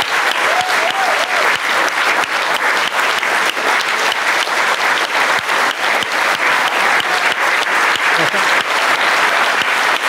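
Large audience clapping in sustained, steady applause.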